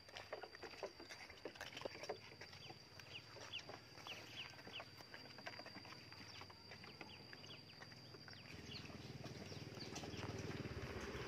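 Footsteps on a concrete lane with a steady high-pitched whine and short high chirps in the background. A low rumble grows over the last few seconds.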